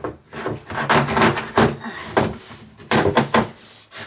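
A rapid series of knocks and bangs, about a dozen in four seconds, the loudest around the middle.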